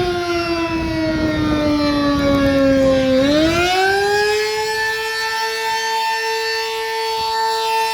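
Sterling Model M electromechanical outdoor warning siren wailing during a test: its pitch slides slowly down, turns upward about three seconds in, and climbs back to hold a steady tone.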